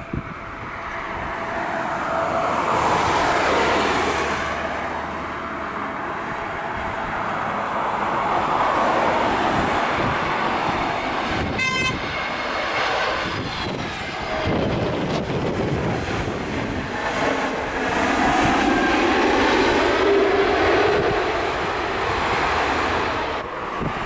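Airliner engines on a landing, swelling loud a couple of seconds in and staying loud with slow rises and falls as the aircraft passes and rolls out.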